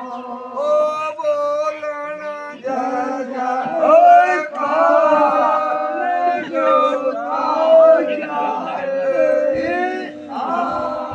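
A group of men singing together without instruments, in long held notes that bend and waver.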